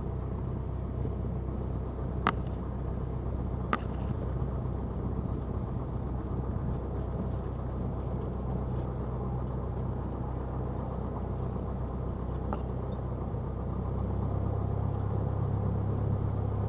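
Cessna 172's piston engine and propeller running steadily at taxi power, a low drone that gets a little louder about fourteen seconds in. Two short clicks sound in the first few seconds.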